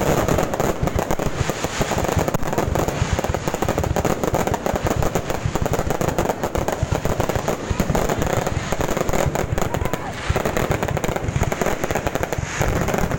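Fireworks crackling in one unbroken stream of rapid pops, many a second, without let-up.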